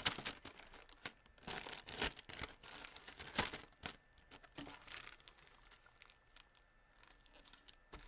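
Clear plastic bag crinkling as a pack of origami paper is slid back into it, in irregular bursts for the first four seconds, then sparser crackles.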